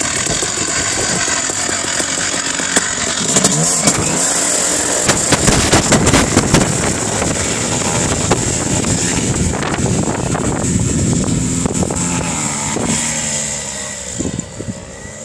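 Paramotor's backpack engine and caged propeller running at high power for takeoff, the pitch rising and falling as the throttle changes. The sound fades near the end as the paramotor climbs away.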